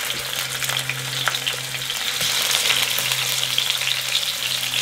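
Venison burger patties sizzling and crackling as they fry in a pot on a portable camp stove, with a steady run of small pops and a low steady hum underneath.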